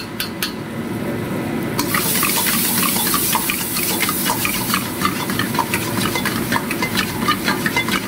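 Metal ladle stirring cashew paste into a frying onion-and-tomato masala in a wok, with rapid clicks and scrapes of the ladle against the pan over a steady sizzle. The sizzle grows louder and hissier about two seconds in.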